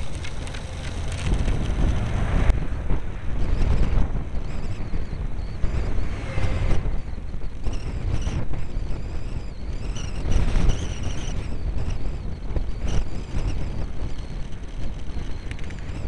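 Wind buffeting a cyclist's camera microphone on a road climb, an uneven low rumble, with a few louder swells as cars and a van pass.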